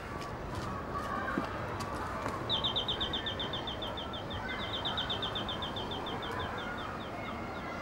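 Doorbell ringing with a rapid, even trill of high chirps, about seven a second, starting a couple of seconds in and running about four seconds with one short break.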